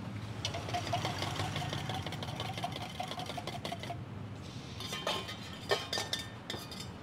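Food frying in a hot pan, a crackling sizzle for the first few seconds, then a handful of sharp metal clanks of a spatula against the pan, over a low steady hum.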